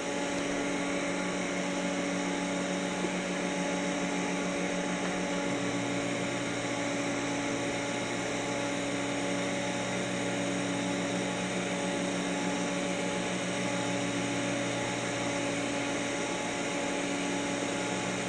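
Steady machine hum with several fixed pitched tones from TIG welding stainless steel tubing at about 55 amps while a pipe positioner turns the tube under the torch; a lower hum joins about five seconds in.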